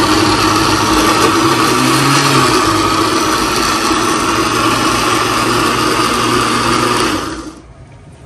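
Electric countertop blender running steadily at speed, pureeing roasted chiles into red salsa, then switched off about seven seconds in, its motor winding down.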